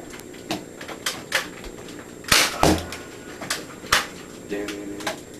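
Nerf blaster clicks and foam darts knocking in a small room: about six sharp, separate clicks and knocks, the loudest about two and a half seconds in, followed by a short dull thud.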